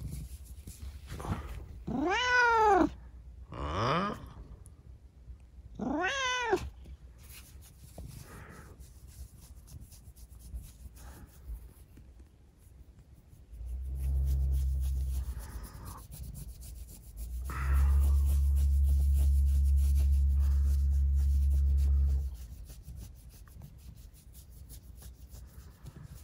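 A domestic tabby cat meowing three times in the first seven seconds, drawn-out meows that rise and then fall in pitch. Later a steady low rumble, lasting about five seconds.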